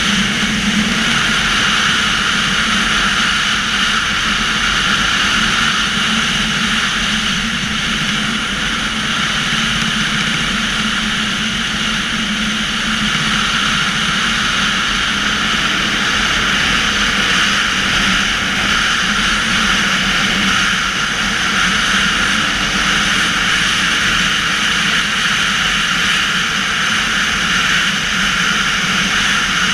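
Dirt bike engine running steadily while riding along a sandy track, heard from a camera mounted on the bike itself.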